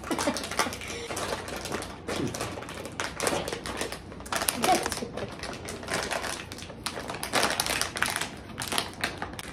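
Crisp bag crinkling and crackling as it is handled and pulled open, a dense run of small rapid crackles.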